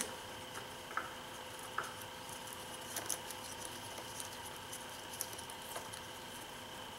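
A few faint, light clicks and taps of metal parts being handled as a VANOS solenoid is fitted back onto the engine by hand, over a faint steady hum.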